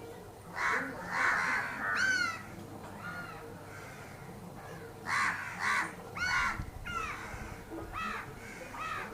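Crows cawing: about ten harsh caws, a cluster in the first two seconds and another run from about five seconds in.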